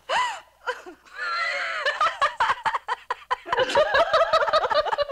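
Women laughing heartily. A short high rising-and-falling squeal at the start gives way to a drawn-out wavering laugh, then fast, pulsing bursts of laughter that build toward the end.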